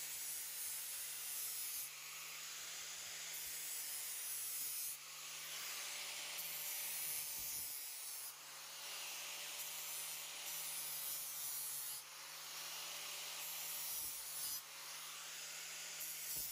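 Angle grinder with a 60-grit flap disc grinding the steel of a double-bit axe head: a steady abrasive grind over the motor's hum, easing briefly every three seconds or so between passes.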